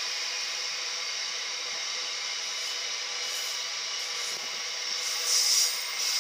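Loaded freight wagons of a gypsum train rolling steadily past: a continuous hiss and rumble of wheels on rail, with a brief louder high burst about five seconds in.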